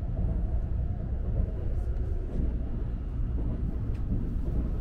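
Steady low rumble of a Shinkansen bullet train running, heard from inside the passenger car.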